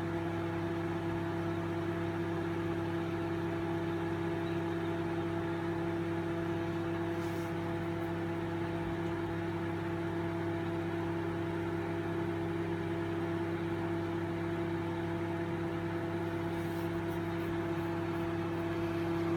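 Microwave oven running with a steady hum. According to its user it runs but is broken inside and does not heat the food.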